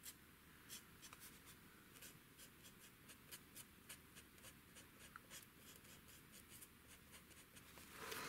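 Faint strokes of an alcohol marker tip on cardstock: short scratchy ticks, a few a second, as small lines are drawn over a stamped image.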